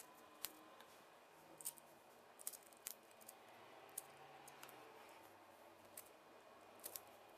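Faint, irregular clicks and taps of 3D-printed plastic parts being handled and pressed together, as a printed bolt or bushing is fitted into a jack arm.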